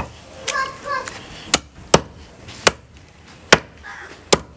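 Heavy butcher's cleaver chopping goat meat and bone on a wooden log chopping block: about six sharp chops at uneven intervals.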